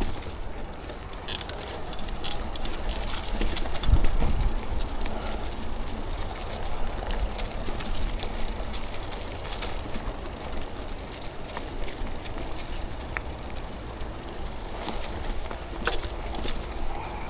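Mountain bike rolling down a dirt trail: tyre noise over the ground with a steady low rumble, and the bike rattling with frequent clicks and knocks. A heavier thump about four seconds in.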